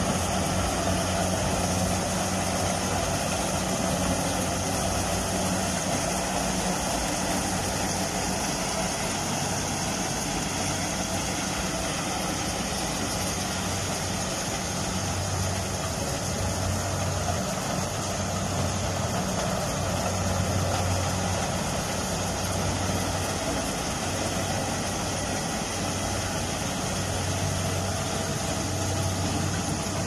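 Small combine harvester's engine running steadily while it harvests standing corn: an even drone whose low hum swells and fades every few seconds.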